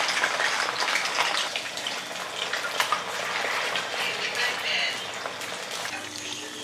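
Plantain slices frying in hot oil: a dense crackling sizzle that eases a little near the end.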